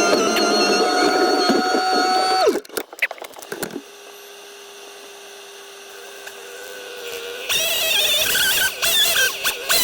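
Heavy land-clearing machinery running with a steady whine that cuts off abruptly about two and a half seconds in, followed by a moment of clattering and a quieter steady hum. Louder machine noise with wavering squeals comes back near the end.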